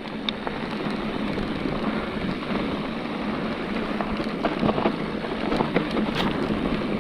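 Electric mountain bike rolling down a dirt singletrack: a steady rush of tyre and wind noise with a low hum, broken by scattered light clicks and rattles as the tyres hit small stones, most of them in the second half.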